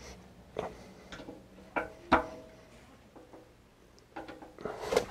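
Screwdriver working the slotted screws of the shaper's bearing housing as they are snugged up: a few sharp clicks of the blade against the screws, then a short scraping rustle near the end.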